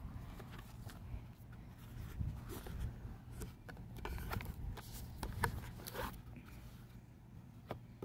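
Hands opening a rigid cardboard album box and handling the card and paper inside: scattered light taps, scrapes and rustles, busiest in the middle, over a low steady rumble.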